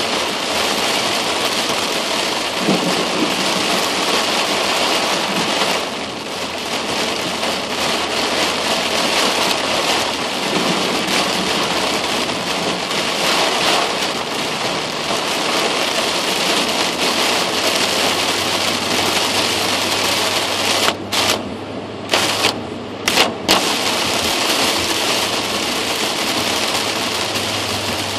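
Heavy rain drumming on the car's roof and windshield, heard from inside the cabin as a loud, steady rush. About three quarters of the way through it cuts out abruptly a few times for a second or so before returning.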